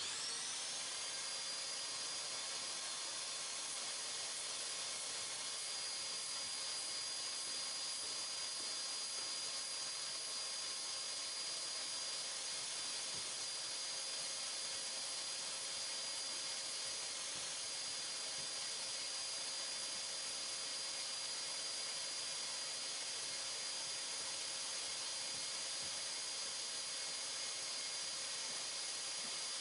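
Shop dust-extraction vacuum running steadily, drawing air through a hose-connected hand sanding block: a constant hiss with a steady high whine.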